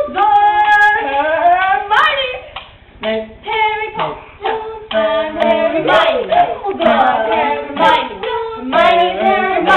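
Several young voices singing a tune together without clear words, with sharp hand claps or slaps among the singing.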